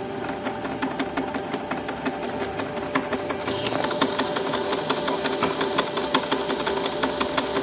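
Canon PIXMA iP2770 inkjet printer running a nozzle check print: its motors whir steadily with rapid clicking from the carriage and paper feed.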